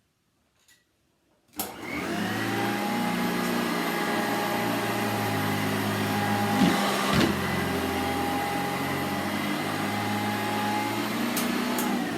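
Sanitaire SC888 commercial upright vacuum cleaner switched on about a second and a half in, then running steadily at full power. Two brief sharp clicks come about halfway through.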